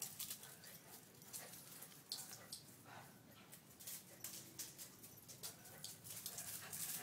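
Small dogs scuffling on a concrete floor: faint, scattered clicks and scrapes of claws, with a few brief, quiet whines.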